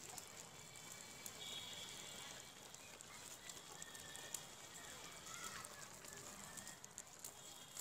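Leafy greens simmering in water in a large metal wok: a faint, even bubbling hiss with scattered soft pops and clicks.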